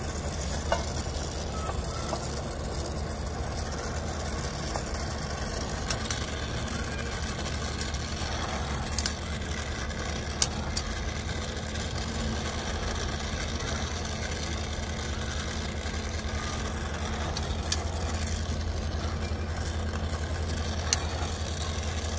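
A steady low machine hum, with a few sharp clicks or taps scattered through it.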